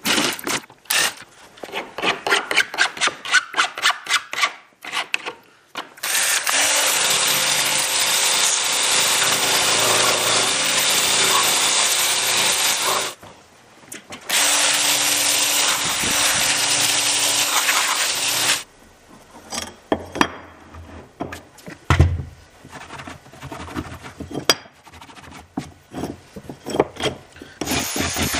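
Tool work as parts are taken off a rotor blade. First comes a run of quick rhythmic strokes. Then a power tool runs steadily for about seven seconds, stops briefly, and runs again for about four seconds. Scattered clicks and a low knock follow.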